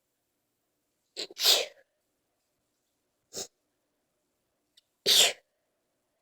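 A person in a sneezing fit: two full sneezes, about a second and a half in and again about five seconds in, with a short, smaller burst between them.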